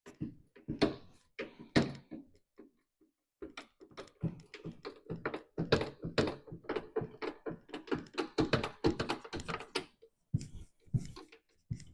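A jack being set under a bent steel frame and pumped to force it straight: a few separate metallic knocks, then a quick run of clicks and clanks for several seconds, then a few more knocks.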